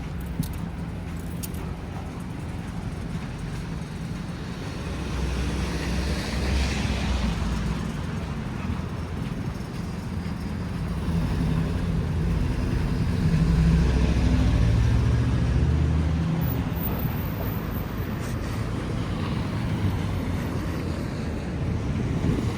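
Road traffic: motor vehicles passing on a snowy city street, a low engine rumble with tyre noise that swells and fades twice, loudest about two-thirds of the way through.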